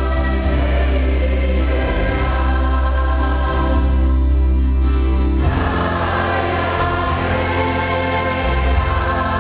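A choir singing a hymn in sustained chords, the harmony changing about five and a half seconds in.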